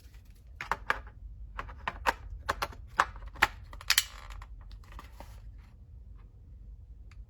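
Sharp clicks and taps from handling an LED video light panel and its lithium-ion battery pack: about a dozen hard clicks over the first four seconds, then quieter handling.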